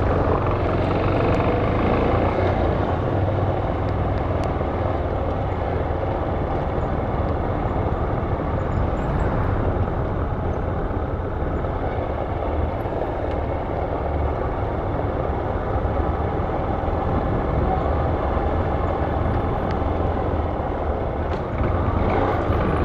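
Motorcycle engine running steadily under way, mixed with wind rushing over the helmet microphone.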